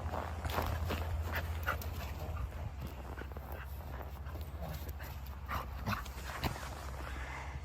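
A Samoyed dog's breathing and small vocal sounds, amid a run of short, irregular scuffs, over a steady low rumble.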